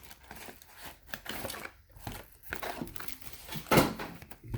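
Plastic wrapping and cardboard of a sealed trading-card hobby box crinkling and tearing as it is opened by hand, with one sharper rip about three-quarters of the way through.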